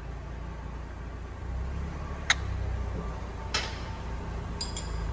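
Sharp metal clinks of a hand wrench working on the mounting bolts of a semi truck's fifth wheel: one about two seconds in, another a second later, and a quick pair near the end, over a steady low hum.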